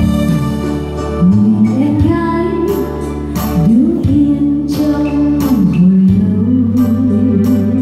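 A woman singing into a microphone over live electronic keyboard accompaniment. Her voice comes in about a second in, and she holds notes with vibrato near the end.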